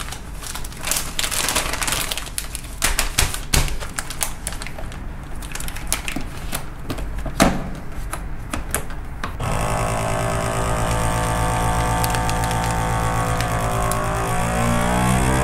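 Plastic vacuum bag crinkling and clicking as it is handled and set into a FoodSaver vacuum sealer. About nine seconds in, the sealer's vacuum pump starts with a sudden steady hum that rises a little in pitch near the end as the bag draws tight around the steaks.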